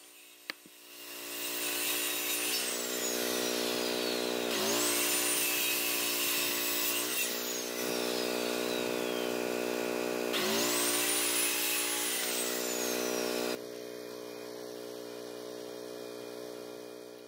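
Circular saw starting about a second in and running while cutting through 2x4 lumber. Its motor pitch dips each time the blade bites into the wood, and the whine winds down between cuts. Quieter over the last few seconds.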